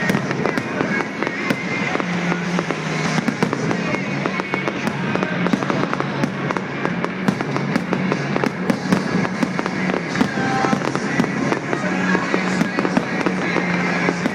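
A fireworks display: a dense, continuous crackle of sharp pops and bangs, several a second, with music playing underneath in sustained low notes.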